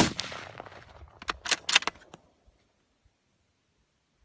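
A single shot from a Savage Axis II bolt-action rifle, with a short echoing tail, followed a little over a second later by a quick run of metallic clacks as the bolt is worked to chamber the next round.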